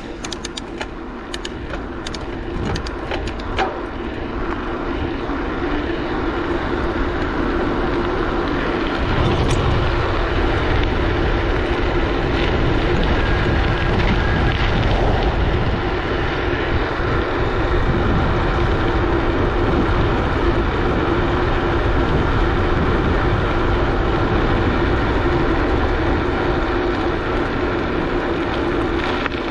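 Mountain bike riding at speed: a steady hum from the tyres rolling over the ground and wind rushing over the microphone, building up over the first nine seconds or so and then holding, with a few sharp clicks in the first few seconds.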